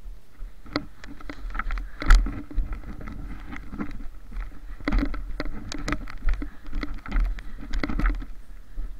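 Footsteps crunching through deep snow, an uneven run of crunches and knocks with handling rumble, the loudest about two seconds in.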